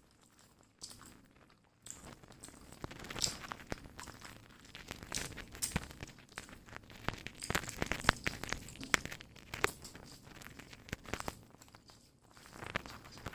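Close-up eating sounds: chewing and crunching of fried seer fish with rice, irregular crackly clicks and tearing of the food.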